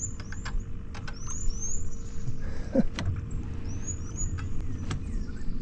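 Rod-and-reel handling noise while a hooked bowfin is fought in: scattered sharp clicks over a low rumble and a faint steady hum. Short high chirps come in pairs several times.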